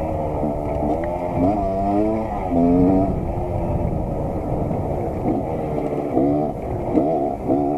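Motorcycle engine revving, its pitch rising and falling several times.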